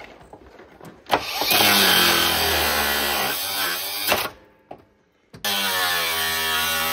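Angle grinder cutting metal on a riding mower's deck linkage, sending off sparks. It runs for about three seconds with its pitch dipping as it bites, stops, then starts again about a second later and runs steadily.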